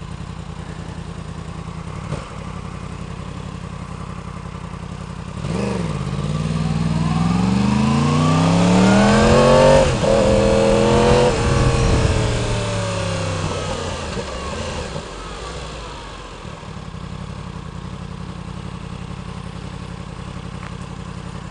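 2016 Yamaha R1's inline-four idling, then pulling away: the revs climb from about five seconds in, dip at a gear change near the middle, climb again, then fall away as the bike slows and settles back to idle. It runs through a cheap aftermarket slip-on exhaust with the catalytic converter still fitted and the exhaust valve held open.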